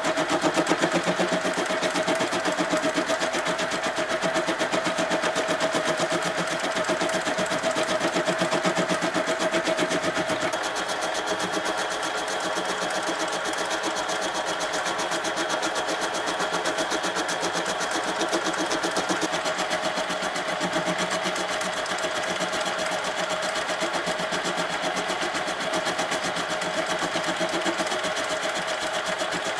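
Metal lathe running with a large threaded steel bolt spinning in its chuck: a steady whine over a fast, even mechanical rattle. The sound shifts slightly about ten seconds in.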